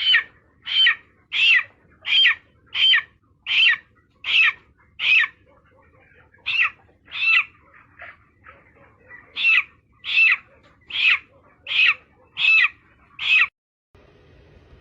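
An animal calling over and over in short, high, bent calls, about one every 0.7 seconds: a run of seven, a pause with a few faint ones, then a second run of about eight that stops suddenly near the end.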